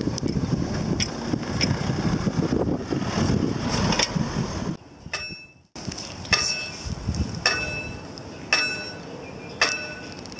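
Wind buffeting the microphone while a car passes. About halfway through, a railway crossing warning bell on a mechanical barrier post starts striking about once a second, each strike ringing out clearly.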